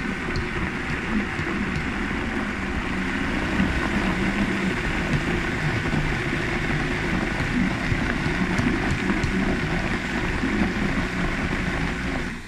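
High-powered blender running steadily as its motor churns a thick cashew sauce, with the tamper pushed down through the lid; the motor's pitch wavers under the heavy load. It shuts off just before the end.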